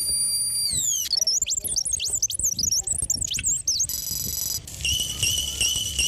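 Synthesized emergency-alert tone sequence: a chord of tones gliding downward, then a rapid flurry of chirping sweeps, a brief steady chord, and a tone beeping about three times a second, over a low rumble.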